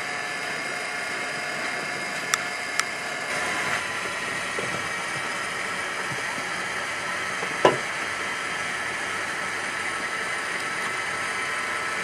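Steady machine-like background noise, with two sharp clicks close together a little over two seconds in and one sharp knock a little past the middle.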